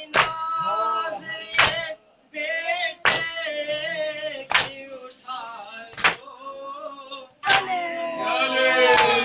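A Muharram nauha (lament) chanted by male voices to matam: a sharp slap of hands on chests about every one and a half seconds keeps the beat, with the chant rising and falling between the slaps.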